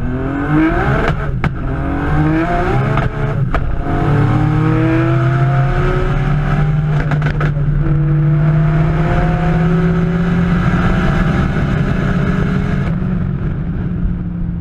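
Turbocharged five-cylinder engine of a roughly 1300 hp Audi S2, heard from inside the cabin at full throttle, rising in pitch through the gears. Quick upshifts come about 1.5, 3.5 and 7 seconds in, and each gear climbs more slowly than the last. Near the end the sound turns duller.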